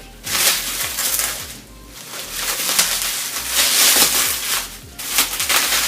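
Crinkly packing material rustling and crackling as a model horse is unwrapped by hand, in three long stretches with short pauses between them.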